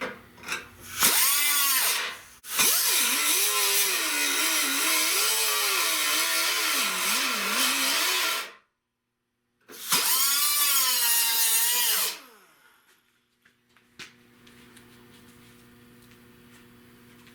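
Handheld electric power tool cleaning the steel of a car's rusted wheel well back to bare metal. Its pitch dips and rises as it is pressed onto the metal. There is a short first burst, then a long run, a sudden second of dead silence, and another run that winds down about twelve seconds in.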